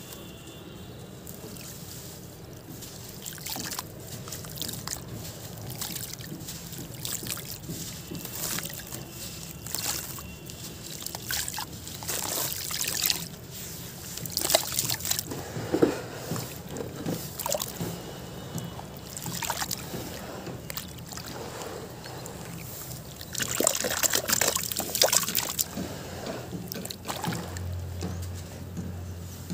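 Hands squeezing and crumbling soft, gritty sand-cement chunks in a tub of water: wet sloshing and swishing with irregular gritty crackles as the lumps break apart, busiest about two-thirds of the way through.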